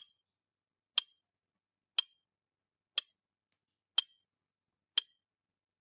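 Countdown timer tick sound effect: six sharp clicks, one each second, with silence between.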